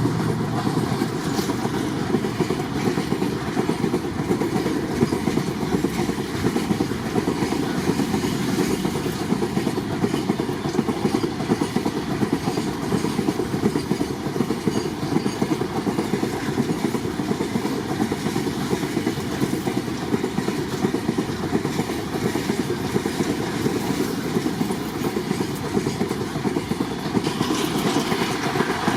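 Loaded freight train rolling past, its wagon wheels clattering over the rail joints in a steady, dense run of clicks. The sound eases slightly near the end.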